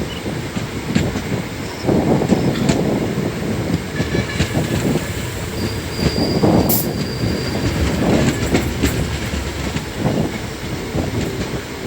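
Passenger train coach running on the rails, heard from aboard: a steady, uneven rumble of wheels on track, with a few brief high-pitched squeals from the wheels about halfway through.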